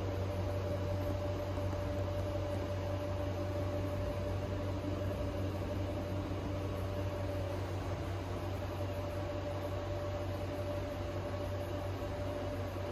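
A steady low mechanical hum with a faint higher whine held over it, like an air-handling or fan system running.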